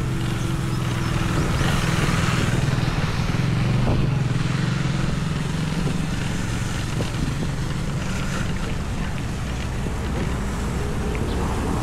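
A steady low engine hum with a noisy wash over it, holding level throughout.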